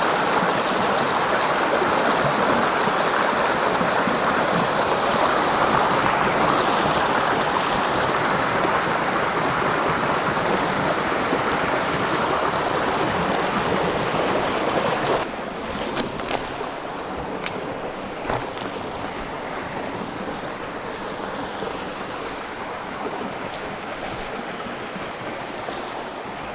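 Stream water rushing steadily over a small trout stream running high. About halfway through it drops suddenly to a quieter rush, with a few sharp clicks scattered through the rest.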